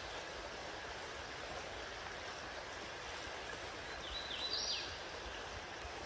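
Steady rush of a creek, an even hiss. About four seconds in, a bird gives a brief call of a few quick falling notes.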